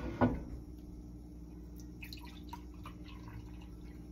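Juice pouring from a plastic bottle into a glass, a faint, uneven trickle that starts about two seconds in, after a short knock near the start.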